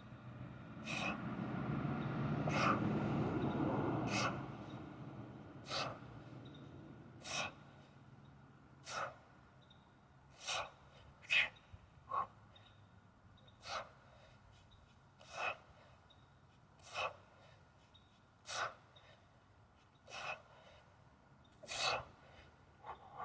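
A man's sharp, forceful exhalations in a steady rhythm, about one every one and a half seconds, one with each two-hand swing of a heavy 48 kg kettlebell. A longer, louder rush of noise fills the first few seconds.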